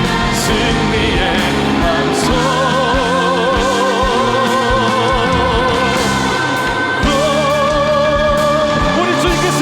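Live contemporary worship band (keys, guitar, bass and drums) playing with vocalists singing long held notes with vibrato.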